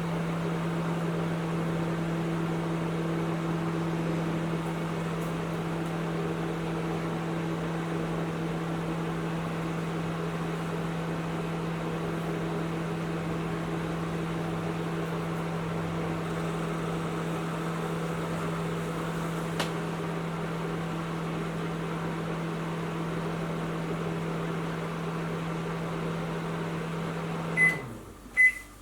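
Panasonic NN-ST45KW inverter microwave oven running a 30-second heating cycle: a steady hum that winds down in pitch near the end as the cycle finishes. The oven's high-pitched end-of-cycle beeps start just as the hum stops, twice before the end.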